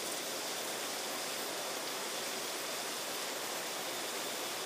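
Steady rushing of a river over rocky rapids: an even hiss that does not change, with no separate events.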